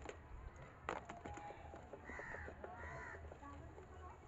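A bird calling twice, two harsh arched calls about two and three seconds in. A couple of sharp clicks come near the start and about a second in, from handling the amplifier and its wires.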